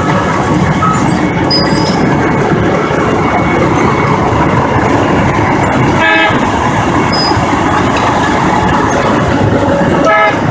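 Volvo EW60E wheeled excavator's diesel engine and hydraulics running hard, heard from inside the cab. Two short pitched toots come about six seconds in and again near the end.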